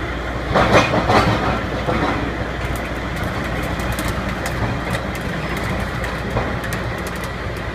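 Rotary drilling rig's engine running steadily, with a few louder metallic knocks in the first second or so and faint ticking later on.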